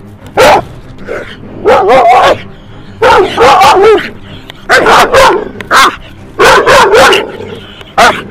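Dog barking in about seven loud bursts, some of them quick runs of several barks.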